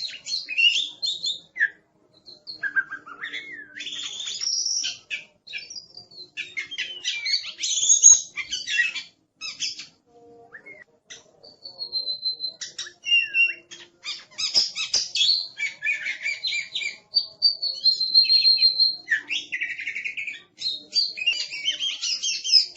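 Oriental magpie-robin (kacer) singing a fast, varied song of chirps, whistled glides and harsh notes, with a short pause about ten seconds in and a held high whistle here and there.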